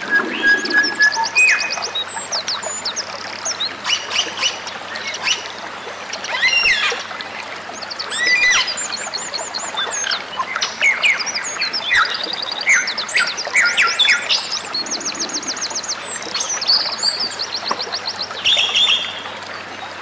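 Songbirds singing without a break: a dense mix of sharp chirps, fast trills and short whistled notes.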